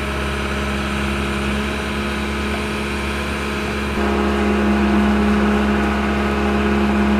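Travel lift's engine running steadily, a little louder from about four seconds in.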